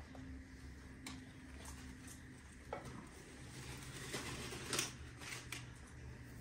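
Plastic pots and clear plastic humidity domes being handled and set down: a few light clicks and knocks, over a steady low hum.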